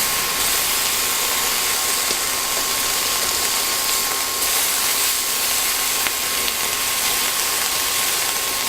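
Bacon strips sizzling in a hot frying pan: a steady hiss with a few faint pops.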